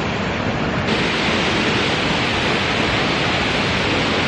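Waterfall close by: a steady, loud rush of falling water that grows brighter and hissier about a second in.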